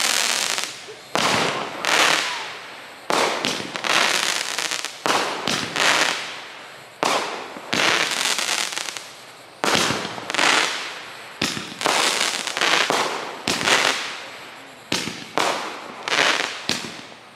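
Consumer fireworks firing a rapid series of aerial shots: about twenty sharp bangs, roughly one a second, each fading away quickly.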